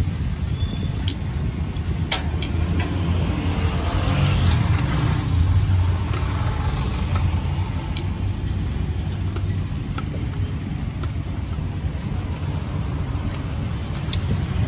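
Steady low rumble of road traffic and engines, with a few faint clicks over it.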